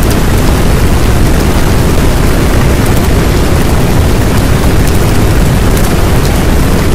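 Loud, steady rushing noise with a deep rumble and no tune or beat: the masking sound track of an audio subliminal.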